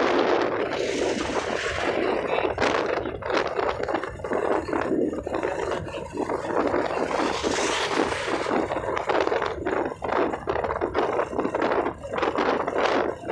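Wind buffeting the phone's microphone on a moving motorcycle, with road and riding noise underneath: an uneven, gusting rush with frequent small knocks and dropouts.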